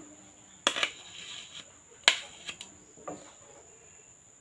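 Steel spoon knocking and scraping against plates while scooping a crumbly cooked semolina-coconut mixture: a few sharp clinks, the loudest about two seconds in, with a short scrape after the first.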